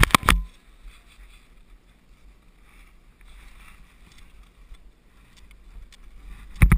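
Wind buffeting a helmet camera's microphone while skiing through deep powder snow: loud rumbling gusts at the start and again near the end, with a faint hiss of skis in snow between them.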